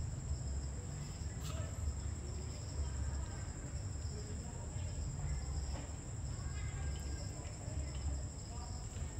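Night crickets trilling in a steady, high, unbroken tone over a low rumble. Faint, indistinct voices are mixed in.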